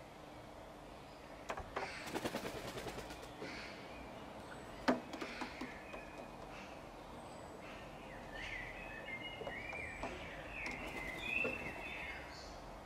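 Small birds chirping and warbling in a garden. About two seconds in comes a rapid rattle of sharp clicks, around ten a second, and near five seconds a single louder click, from the Eurasian magpies feeding at a dish on the garden table.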